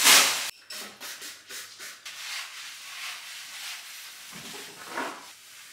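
Rustling of a black plastic bag being shaken and handled: one loud swish at the start, then fainter rustles and crinkles, with a brief louder rustle near the end.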